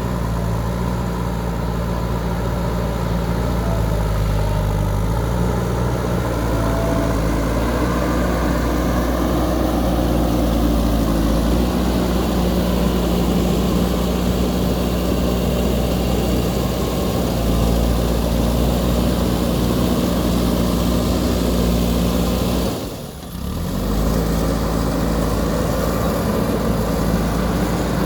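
JCB 3DX backhoe loader's diesel engine running steadily while working, its note shifting slightly in pitch early on. The sound dips briefly for under a second about three quarters of the way through, then carries on as before.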